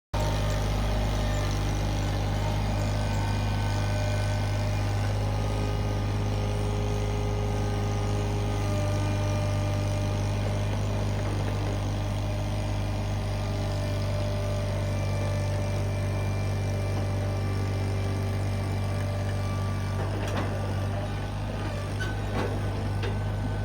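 Iron Rhino IR1200 mini skid steer's engine running steadily with an even low hum, with a few faint clanks near the end.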